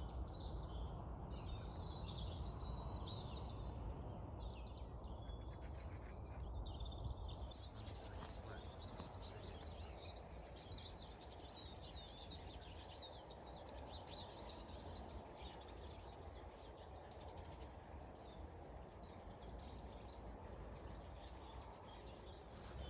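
Outdoor ambience of small wild birds chirping and singing in short scattered calls, over a steady low background rumble.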